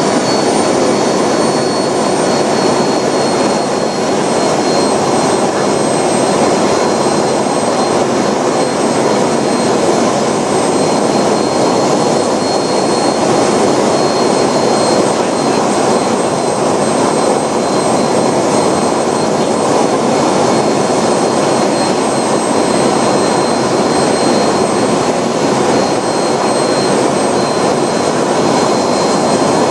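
Hammer RC model jet turbine running at a steady speed: a loud, even jet roar with a thin high whine over it.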